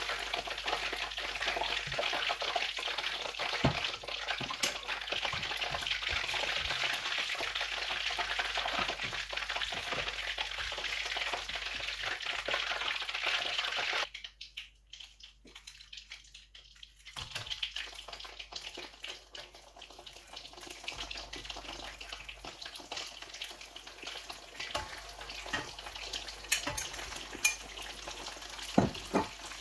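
Chicken frying in hot oil, a dense crackle and sizzle. About halfway through it drops out suddenly for about three seconds, then comes back fainter, with a few sharp clicks near the end.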